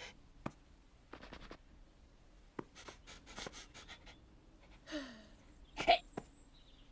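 Home-recorded foley effects: a scatter of small clicks, taps and scratchy scrapes, with a short falling vocal squeak about five seconds in and a sharper click just before six seconds.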